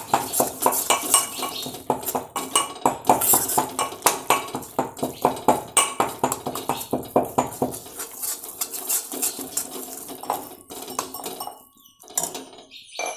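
Rapid metal-on-metal clinking and scraping of kitchen utensils: a spoon stirring wheat flour roasting in ghee in a steel kadai, and a pestle striking a small steel mortar. The clinks come several a second, then thin out and grow quieter after about eight seconds.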